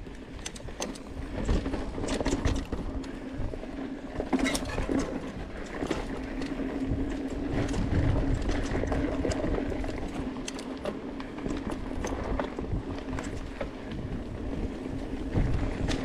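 Mountain bike riding fast down a dry dirt trail: tyres crunching over dirt and debris and the bike rattling with frequent sharp knocks over bumps, over wind noise on the camera and a steady low hum.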